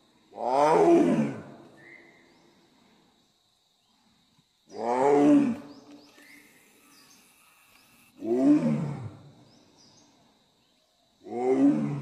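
Bengal tiger roaring: four loud roars about three to four seconds apart, each about a second long and sliding down in pitch.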